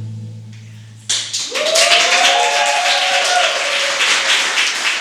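The last held note of a rock song dies away. About a second in, applause and hand-clapping break out suddenly, with a long cheering whoop over them.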